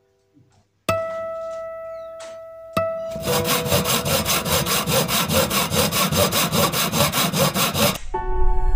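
Edited-in sound effect: two sudden ringing tones that fade, then a loud, even, rasping rhythm of about five strokes a second that cuts off suddenly.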